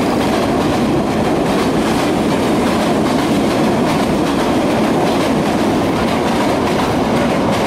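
Vietnam Railways train cars rolling past: a steady, loud noise of steel wheels on the rails, with faint repeated clicks over the rail joints.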